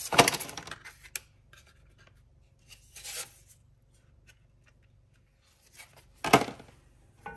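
Lasagne sheets being handled and laid into a glass baking dish: short scraping rustles, loudest just after the start and again just past six seconds, a softer one around three seconds, with light clicks between.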